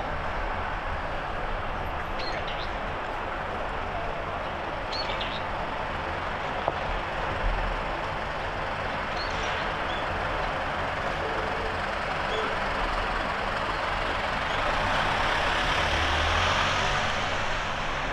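Steady street traffic noise that swells near the end as a vehicle passes, with a few short, faint bird chirps.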